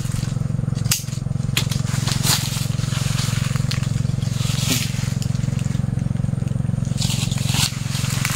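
A hand pruning cutter snapping and cracking through small dead tree branches, with leaves rustling: a series of short, sharp cracks about a second apart, over a steady low hum.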